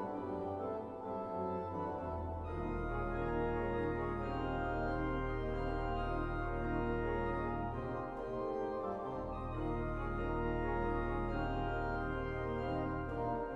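Pipe organ playing sustained chords on the manuals over deep held pedal notes; the pedal bass drops out briefly about eight seconds in, then returns.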